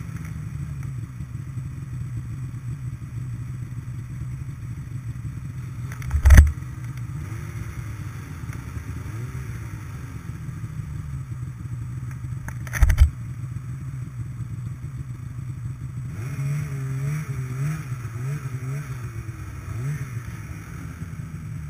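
Snowmobile engine idling steadily, with two sharp thumps about six and thirteen seconds in. Late on, the engine note rises and falls in a few short revs as the sled creeps forward.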